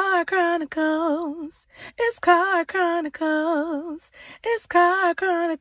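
A woman singing a cappella, one unaccompanied voice, in three phrases with short breaks between them, holding notes with a wide vibrato.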